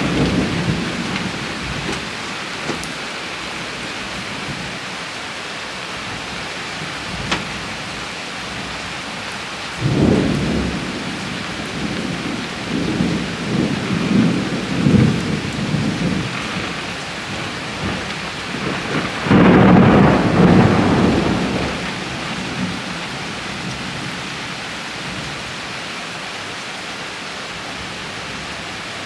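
Steady heavy rain with rolling thunder. A rumble fades at the start, several rumbles come from about ten seconds in, and a louder peal breaks suddenly about two-thirds of the way through before rolling away.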